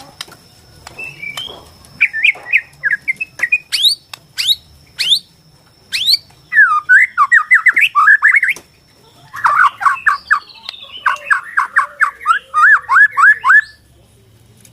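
Bornean white-rumped shama (murai batu) singing a loud, varied song: sharp upward-sweeping whistles, then fast runs of repeated sweeping notes, in phrases with short pauses between them.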